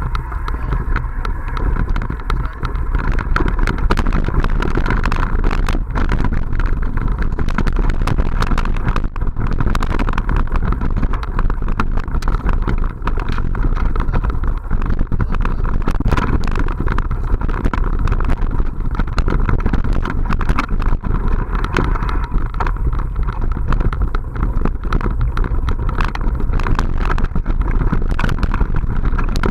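Riding a mountain bike over a bumpy forest dirt trail, heard from a camera mounted on the bike or rider: steady wind rumble on the microphone and tyres running on dirt, with frequent knocks and rattles as the bike hits bumps.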